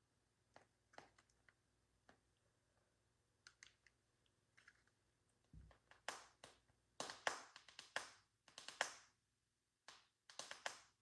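Quiet handling noise: a few light taps and clicks, then from about six seconds in a run of short rustling, scuffing noises.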